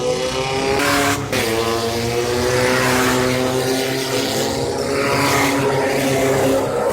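Off-road race vehicle's engine at full throttle. It climbs in revs for about the first second, breaks off briefly as if shifting gear, then holds steady at high revs.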